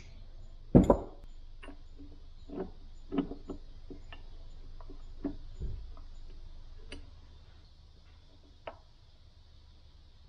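Irregular metallic clicks and knocks of transmission gears and a shaft being handled and slid apart inside an open riding-mower gearbox case, about a dozen in all, the loudest a knock just under a second in and a duller thump near six seconds.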